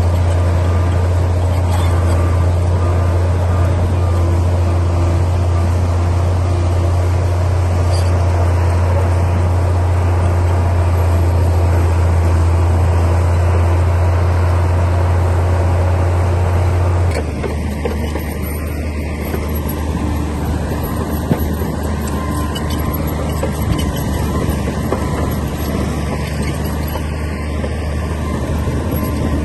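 Bulldozer's diesel engine running steadily under work, with a strong low hum. A little over halfway through, the sound changes abruptly to a slightly quieter, lower drone.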